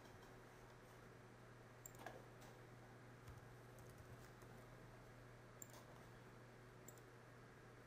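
Near silence over a steady low hum, broken by a few faint, scattered clicks of a computer mouse and keyboard keys.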